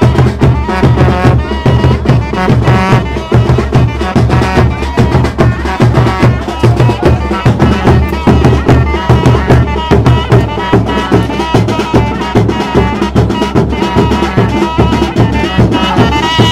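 Traditional drum music: a fast, steady drum beat with a pitched melody line over it.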